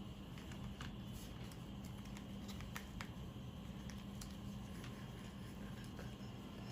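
Faint scattered clicks and light rustling of hands handling an Apple Watch charging cable and its packaging, over a steady low hum.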